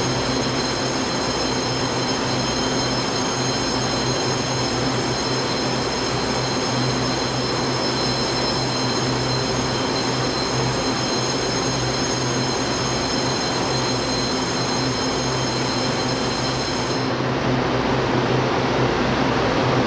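Taiwan Railways electric multiple unit standing at the platform with its onboard equipment running: a steady hum and rush of its air conditioning and auxiliary machinery, with a high whine over it that cuts off about 17 seconds in.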